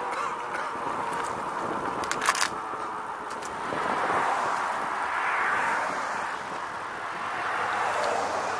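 Cars passing on the road alongside, their noise swelling and fading several times. A short rattle of sharp clicks comes about two seconds in.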